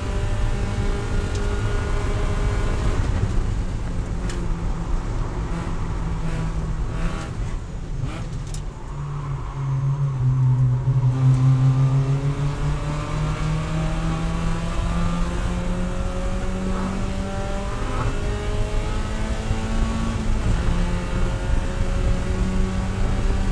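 Spec Miata race car's four-cylinder engine heard from inside the cockpit, first running near 6,000 rpm. About three seconds in it winds down through several downshifts under braking for a slow corner, then pulls hard and climbs steadily from low revs, with one upshift about three seconds before the end.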